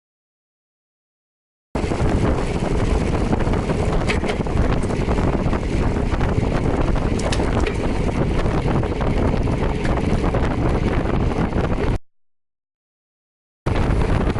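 Wind buffeting the microphone of a moving rider, a steady low rumbling rush. The audio drops out to total silence at the start and again briefly near the end.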